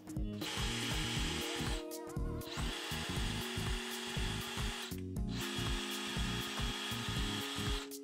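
Cordless drill running in three bursts as it bores out the mounting holes of a 3D-printed plastic plate. The first burst starts about half a second in, with short breaks near 2 s and 5 s. Background music with a steady beat plays underneath.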